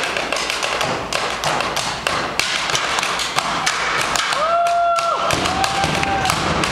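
Percussion played on trash cans, buckets and other janitorial gear: fast, dense tapping and thumping strikes. Two short tones rise and then hold partway through.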